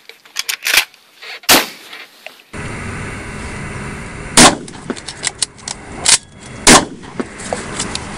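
12-gauge semi-automatic shotgun being fired, with quick clicks of the action and shell loading between shots. There are a few sharp clicks in the first second and a shot about one and a half seconds in. Louder shots follow about four and a half, six and nearly seven seconds in, over a steady background hiss.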